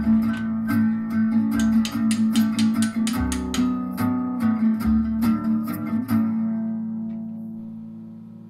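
Background music: a guitar track with quickly picked, plucked notes, ending on a chord that rings out and fades over the last couple of seconds.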